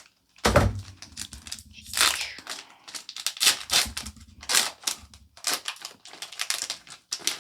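A dull knock about half a second in, then a string of short snips and rustles: scissors cutting open a foil Pokémon card booster pack and the wrapper crinkling as it is handled.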